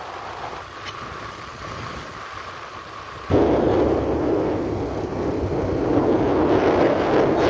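Wind buffeting the microphone: a steady rushing rumble that jumps suddenly to a much louder roar about three seconds in.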